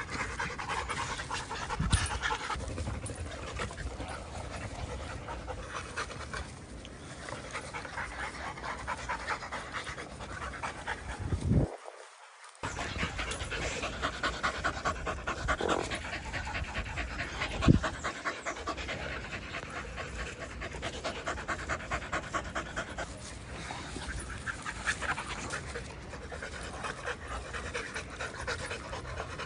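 Rottweilers, puppies and an adult, panting fast during rough play, several pants a second. There are two sharp knocks, one about two seconds in and a louder one past the middle.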